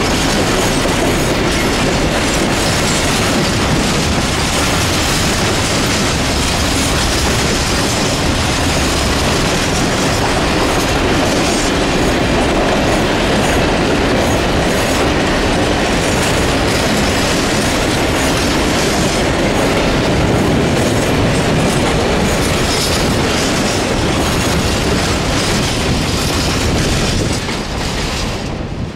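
Container freight train's loaded flat wagons rolling past on the track: a loud, steady rumble of wheels on rails that falls away near the end as the last wagon goes by.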